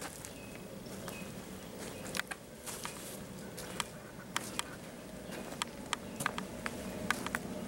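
Footsteps of high-heeled boots walking over leaf-strewn dirt: short, sharp clicks at irregular intervals, more frequent from about two seconds in, over a steady low hum.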